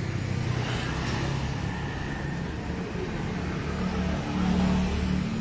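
Street traffic: a motor vehicle's engine running close by, its low hum growing louder and rising slightly in pitch about four seconds in.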